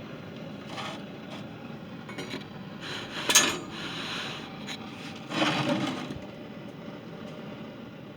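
Steady hiss of a blow lamp flame heating a heat-shrink solder connector, with a few clinks and knocks of handling; a sharp clink about three seconds in is the loudest sound, and a brief louder burst follows a couple of seconds later.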